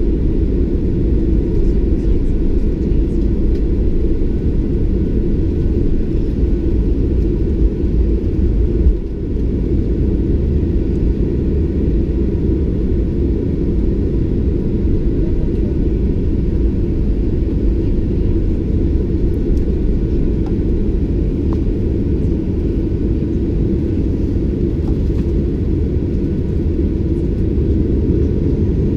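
Steady low cabin rumble of a Boeing 737-800 taxiing toward the runway, its CFM56-7B engines at taxi thrust, heard from a window seat beside the wing.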